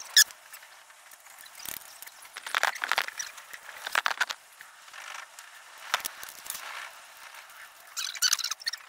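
Irregular metallic clicks, rattles and scrapes from a hand tool working the exhaust control valve's pulley and cable linkage on a motorcycle exhaust, in scattered bursts.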